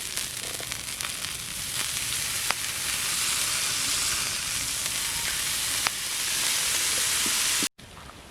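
Meat sizzling over a campfire, a steady hiss with a few sharp pops, growing louder about three seconds in and cutting off abruptly near the end.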